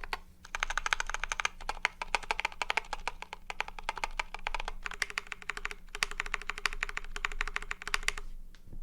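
Fast typing on a YMDK Wings mechanical keyboard with Boba U4T tactile switches and PBT keycaps, foam- and tape-modded: a dense run of muted key clacks in quick bursts with brief pauses. The typing stops shortly before the end.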